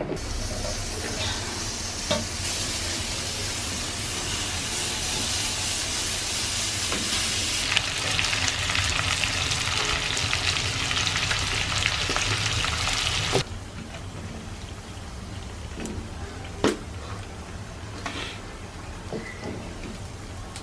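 Pieces of marinated pork frying in oil in an iron pan over a wood fire: a steady sizzle that grows louder partway through and then stops abruptly. After that comes a quieter sizzle with a few light clicks.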